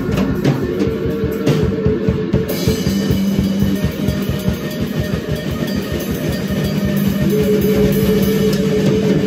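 A live band improvising a loud noise jam: a drum kit played densely with cymbal wash under long, droning electric guitar notes, picked up by a single phone microphone in a small room.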